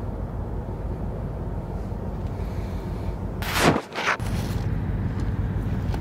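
Steady low rumble of wind buffeting the microphone. About three and a half seconds in comes a short falling swish, and the rumble drops out for about half a second before resuming.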